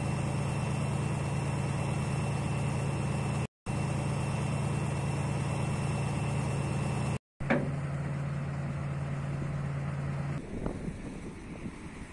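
Heavy diesel military vehicle engine idling steadily with a low hum and a thin high whine, broken twice by brief drop-outs. A sharp click comes about seven and a half seconds in, and the engine hum stops about ten seconds in, leaving uneven outdoor noise.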